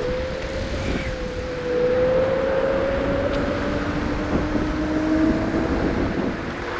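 Lime electric rental scooter riding along, its motor giving a steady whine that slowly rises in pitch, over road rumble and wind on the microphone.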